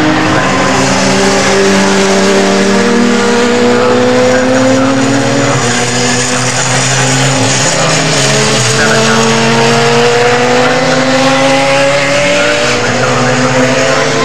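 Radical sports-prototype race cars running at racing speed, more than one engine heard at once. The engine notes climb slowly in pitch as they accelerate, once in the first half and again in the second half.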